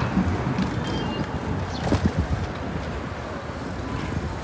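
City street traffic noise heard from a moving bicycle in a bike lane: a steady low rumble of road and wheel noise, with a few short low bumps about two seconds in.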